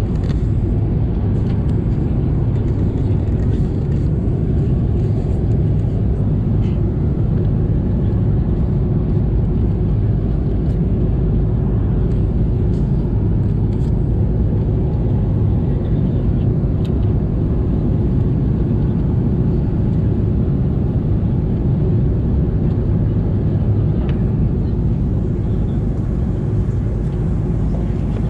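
Steady low rumble of an airliner cabin, the constant engine and airflow noise heard from a passenger seat, with a few faint clicks.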